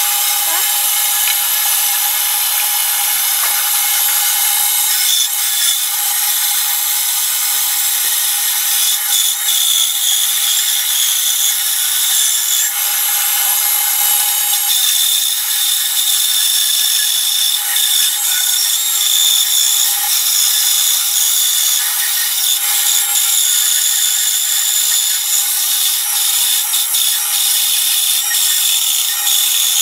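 Delta benchtop band saw running, its blade cutting a curve through a thick wooden board: a steady, high-pitched whir.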